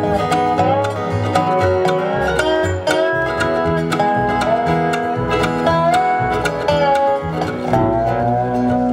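Live bluegrass band playing an instrumental break: a dobro leads with notes that slide up into pitch over picked banjo, strummed acoustic guitar and a walking double bass.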